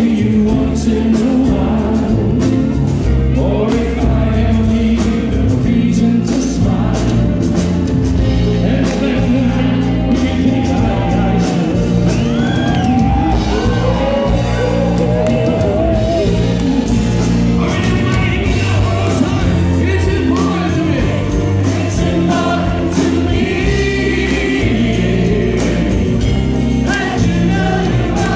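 Live rock band playing: a male lead singer over electric guitar, bass guitar and drums, amplified through the venue's PA, with several voices singing together at times.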